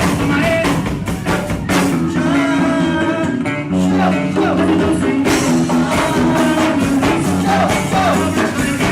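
Loud recorded music with a singing voice over a steady beat.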